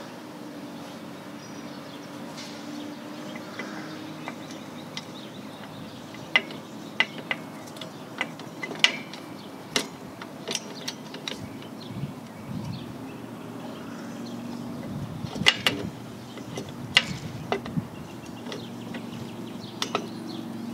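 Light metallic clicks and clinks of a rear drum-brake shoe and its spring hardware being fitted by hand onto the backing plate of a 2008 Toyota Yaris. About a dozen sharp, irregular taps fall mostly from about six seconds in, over a steady low hum.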